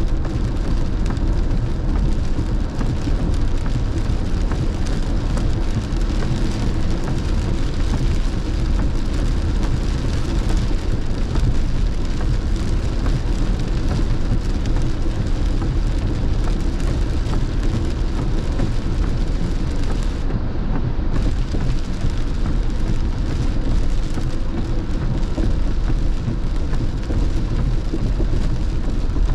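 Heavy rain drumming steadily on a moving car, heard from inside the cabin, over the low rumble of tyres on a wet freeway.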